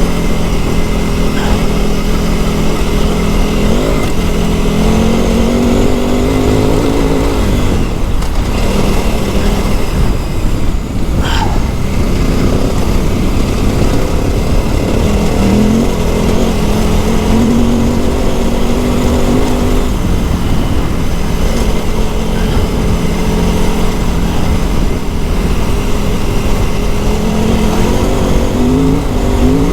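KTM 950 Adventure S's LC8 V-twin engine running under way off-road, its note rising and falling again and again with the throttle and gear changes, with a brief dip about eleven seconds in.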